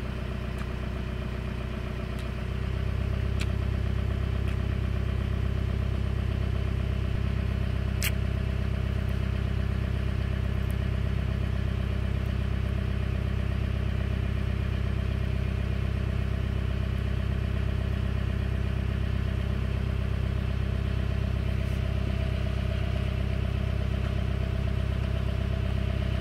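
A motor engine idling steadily, a low hum of several fixed pitches that steps up in level about two and a half seconds in. One short click about eight seconds in.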